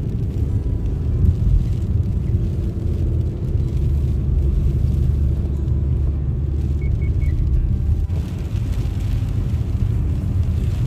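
Steady low rumble of a car driving, heard from inside the cabin: engine and tyres on wet pavement. Three quick high beeps sound about seven seconds in.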